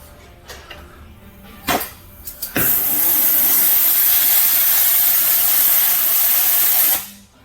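A sharp pop, then a loud steady hiss of gas or air under pressure that runs for about four seconds and cuts off abruptly.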